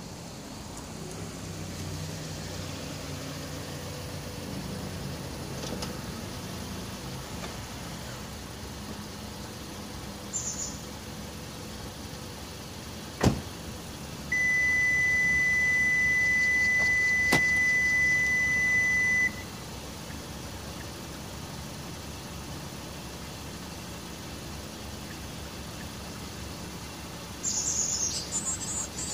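Kia K5 (JF) parked with a low hum running, then a sharp click as the door-handle lock button is pressed and released. A steady high electronic beep follows for about five seconds and stops suddenly. Short high chirps come near the end.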